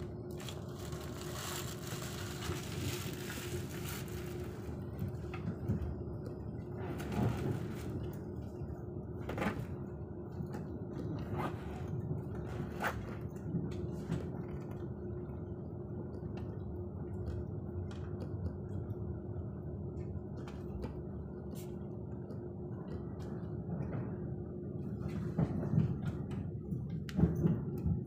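Running noise of a ČD Railjet train heard from inside the passenger coach as it pulls away and gathers speed: a steady low rumble with a constant hum, a hiss in the first few seconds, scattered sharp clicks in the middle and a few louder knocks near the end.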